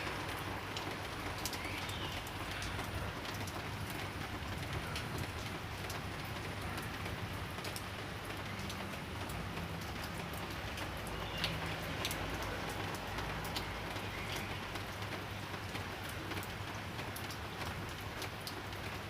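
Steady light rain falling, with many small drops ticking on a surface, and a few brief bird calls now and then.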